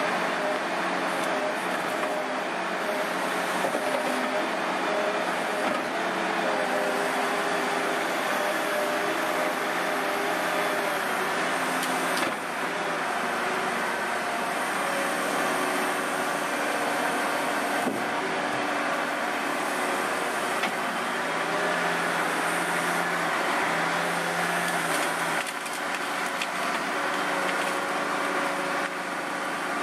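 Wheeled forestry excavator's diesel engine and hydraulics running steadily, the engine note rising and falling under load as the grapple-saw boom swings and lifts a felled tree. There are a couple of brief knocks.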